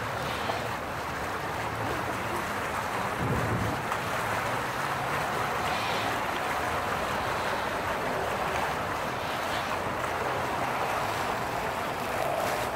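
Steady rushing outdoor noise, with a brief low rumble about three seconds in.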